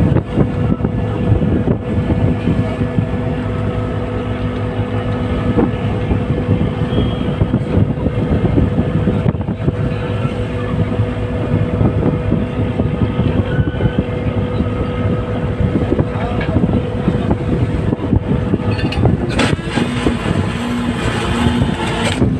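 Fishing boat's engine running steadily, with wind and wave noise over it. Near the end a harsher, pulsing sound joins.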